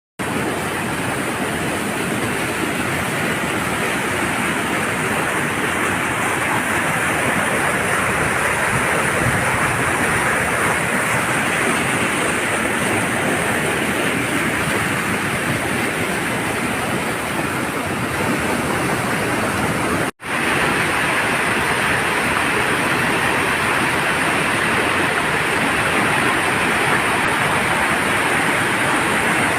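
Waterfall: a steady rush of falling water that breaks off for an instant about twenty seconds in.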